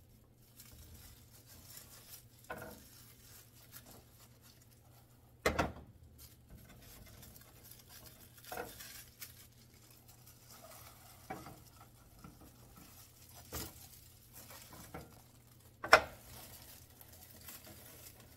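Stacked sheets of crisp roasted laver (gim) being pressed, cut with a knife and handled on a wooden cutting board: faint crinkling and rustling with scattered knocks and taps on the board, the loudest a few seconds in and near the end.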